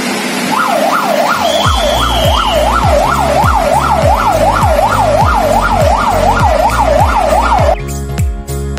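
Yelp-style siren wailing rapidly up and down, about three sweeps a second, over a heavy thumping bass beat. The siren cuts off abruptly near the end.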